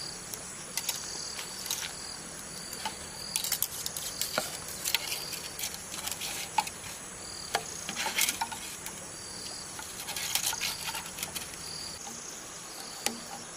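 Insects chirping in short repeated calls over a steady high drone, with scattered sharp clicks and knocks.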